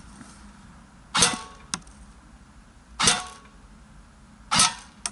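Airsoft electric rifle (AEG) firing three single shots, each a sharp crack with a short metallic ring, about a second and a half to two seconds apart.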